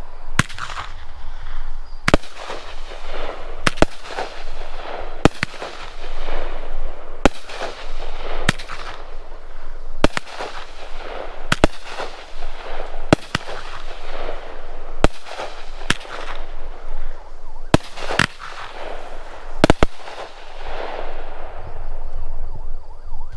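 A 12-shot, 200-gram consumer fireworks cake firing its shots straight up, a sharp bang about every second and a half, each followed by a crackling hiss from the strobe stars. Near the end, two pairs of shots come close together for the gold strobe mine and brocade finale.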